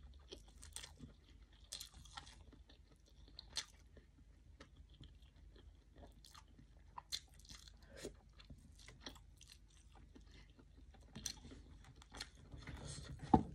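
Close-miked chewing of a mouthful of rice, omelette and stewed meat eaten by hand: faint, irregular wet mouth clicks and smacks, with a louder click near the end.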